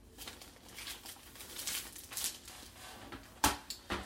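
Clear plastic bag crinkling as a CGC-graded comic slab is handled and pulled from it, with a sharp knock about three and a half seconds in and a smaller one just after.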